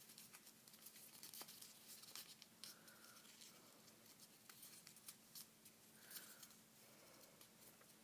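Faint rustling and small crackling clicks of a sheet of paper being folded and creased by hand, over a faint steady hum.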